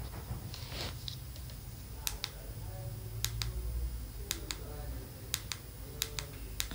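Scattered sharp clicks, several in close pairs (about eight in all), over a low steady hum, with faint voices in the background around the middle.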